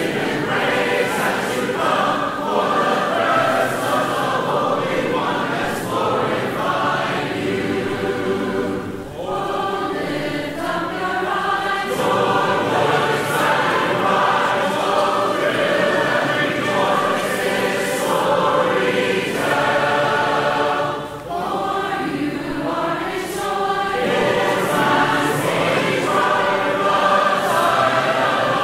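Mixed choir singing a hymn in four-part harmony. In the chorus the lower voices echo the upper voices' lines.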